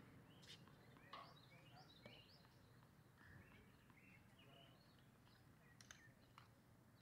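Faint bird chirps and calls over a low steady hum, with a few soft clicks.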